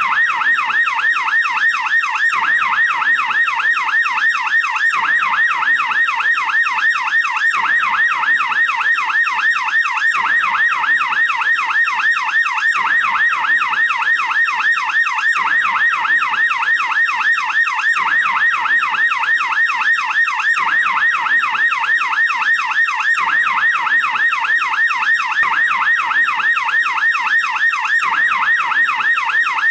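American police car siren in yelp mode: a fast, continuous up-and-down wail that sweeps between a low and a high pitch several times a second, steady and unbroken.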